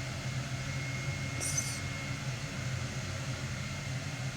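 Steady low room hum with a faint thin whine, and one brief high-pitched squeak about a second and a half in.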